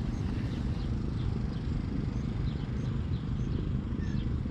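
Wind rumbling on the microphone, with faint short bird chirps now and then.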